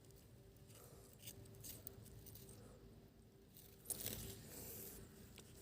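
Near silence, with a few faint clicks and a soft rustle of handling about four seconds in.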